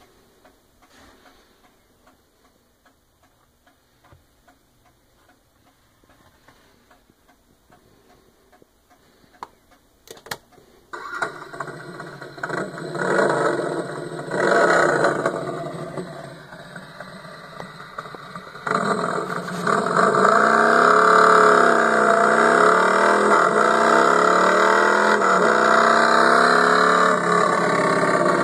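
A recorded motorcycle engine sound effect played through a novelty Harley-Davidson table lamp's small speaker, with no deep bass. After a couple of clicks about ten seconds in, the engine starts and revs twice. It then runs loud and steady with a wavering tone.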